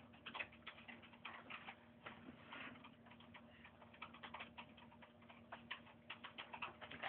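Faint, irregular clicking of a computer keyboard being typed on, the clicks coming in quick clusters.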